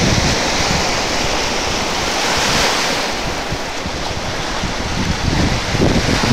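Small sea waves breaking and washing in around the posts and stones of an old wooden groyne, a steady surf hiss. Wind buffets the microphone with a low rumble, easing in the middle and picking up again near the end.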